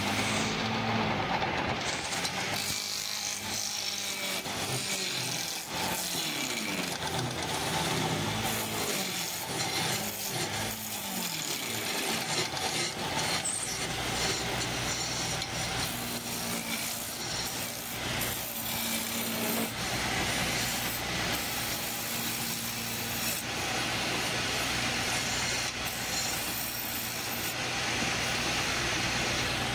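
Wood lathe running, with a turning chisel scraping and cutting into the spinning wood: a continuous rasping over the motor's steady hum.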